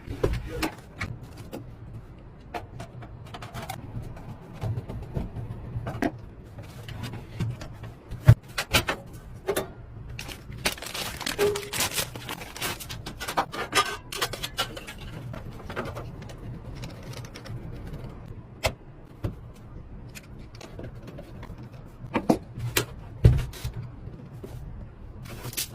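Irregular clicks, taps and knocks of computer parts being handled and fitted together during a PC build, with some rustling of packaging, over a low steady hum.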